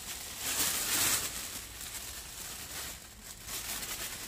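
Clear plastic bag crinkling and rustling as sauce-coated pieces of belly pork are shaken out of it into a frying pan. The rustling is loudest about a second in.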